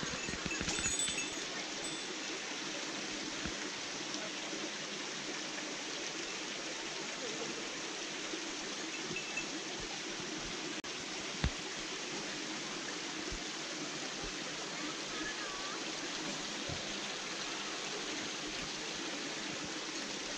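Shallow stream water flowing steadily over a cobbled stone channel bed, an even running-water sound.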